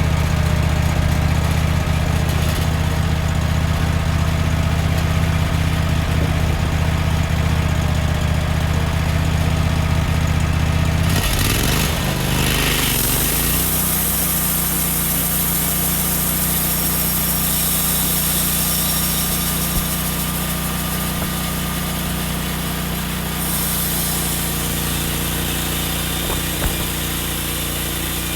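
Wood-Mizer LT15 sawmill engine running steadily with the band blade disengaged; about eleven seconds in its pitch glides and shifts as it is throttled up and the blade engages, and it then runs on steadily with a strong hiss from the moving band blade.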